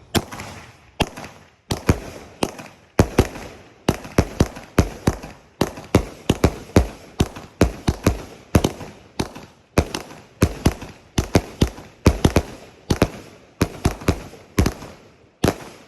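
Black Diamond Fireworks 25-shot blue willow cake firing, a rapid string of sharp shots about one to two a second, each trailing off briefly, with no pause between them.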